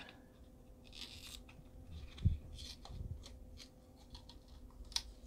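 Plastic bottle of screen-cleaning solution being handled and its cap opened: small scrapes and clicks, a soft thump about two seconds in, and a sharp click near the end.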